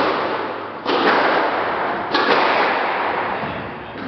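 Squash rally: the ball cracks off rackets and the court walls, three loud sharp hits each ringing on in the echoing court.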